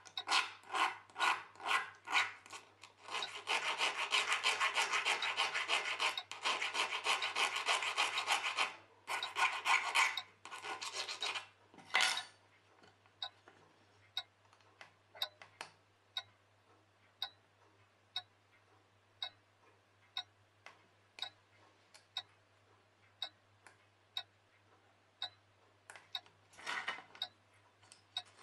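Hand filing or stoning strokes on a small steel watch part, the fly spring being shaped: quick rhythmic rubbing strokes that run together into a dense stretch, then stop about twelve seconds in. After that, light ticks come about once a second, with one more short burst of strokes near the end.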